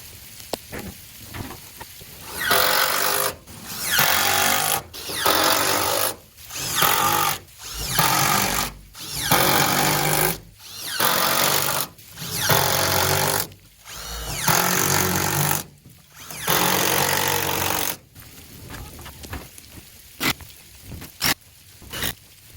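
Impact driver driving fasteners into lumber: about ten bursts of hammering, each a second or two long with short pauses between, the last two longer. A few light clicks and knocks follow near the end.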